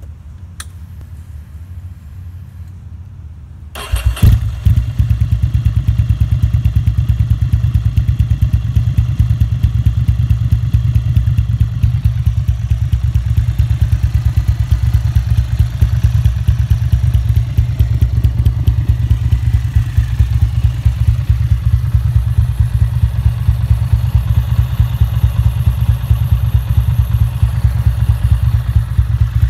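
2008 Ducati Monster 695's air-cooled L-twin, through a full Leo Vince exhaust, catching with a loud bark about four seconds in after a single click, then settling into a steady, lumpy idle. Through the phone microphone it sounds mechanically noisy, like bad bearings, which the owner puts down to the recording rather than the engine.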